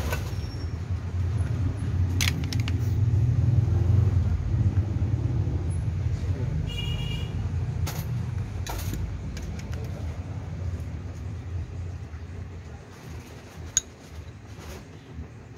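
A low rumble that swells over the first few seconds and then slowly fades, with a few light clinks of a metal spoon against mussel shells and a ceramic plate and bowl.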